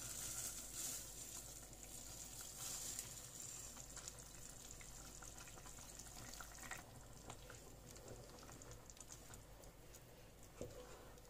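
A pot of broth simmering faintly as soaked basmati rice is tipped in from a bowl and stirred with a wooden spoon. The rice going in gives a soft hiss near the start, followed by a few small scattered ticks.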